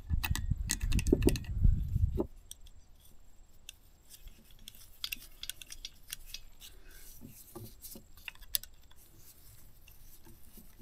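A loud low rumble that stops about two seconds in, then scattered light metallic clicks and rattles of a bolt, nut and ignition coil bracket being handled and fitted against a small two-stroke chainsaw engine.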